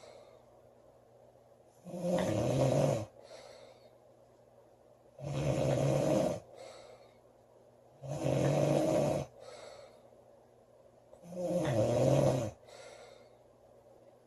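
A woman snoring loudly in a steady rhythm: four snores roughly three seconds apart, each about a second long and followed by a fainter, shorter breath sound.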